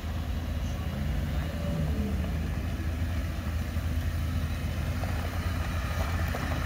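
Suzuki Jimny engines idling with a steady low drone, as an older-generation Jimny creeps forward at low revs.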